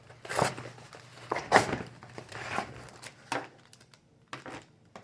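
Packaging being handled during an unboxing: irregular crinkling and rustling, about five separate rustles, the loudest about one and a half seconds in.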